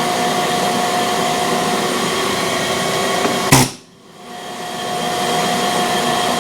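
Steady hissing whoosh of compressed air from the shop-air tool used to straighten a camshaft's run-out. About three and a half seconds in it is cut by one sharp strike, drops away briefly, then builds back up.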